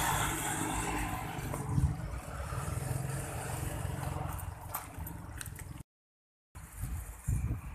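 Road traffic passing close by: the engine and tyre rumble of a minibus and motorbikes, easing off after a couple of seconds. Then a few crunching steps on gravel, and the sound cuts out briefly near the end.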